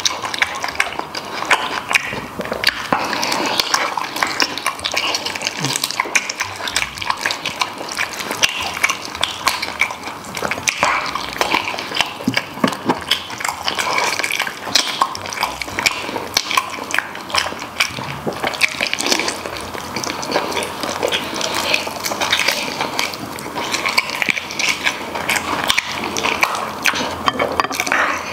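Wet chewing and lip smacking as a person bites into and chews stewed spicy pork knuckle held in the hands: a dense run of smacks with no pause.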